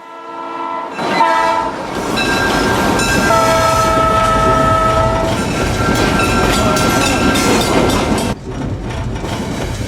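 A diesel locomotive running past with its rumble and rail clatter while its multi-tone air horn sounds long chord blasts.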